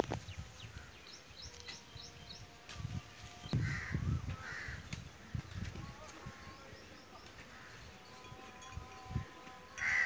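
Birds calling: a run of quick high chirps in the first two seconds, then a crow cawing twice about four seconds in and once more, louder, at the end. Low rumbles on the microphone come and go underneath.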